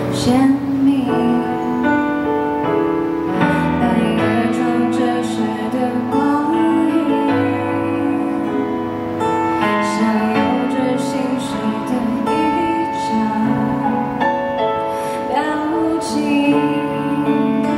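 A woman singing a Mandarin pop ballad live into a microphone, accompanied by piano.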